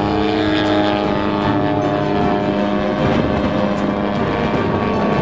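Radio-controlled model airplane's motor and propeller running at full power with a steady, high buzzing pitch as the plane takes off and climbs.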